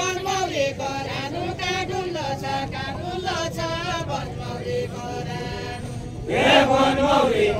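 Deuda folk song of far-western Nepal, sung by a group of voices without instruments in a chant-like line with wavering held notes; a louder, fuller group of voices comes in about six seconds in.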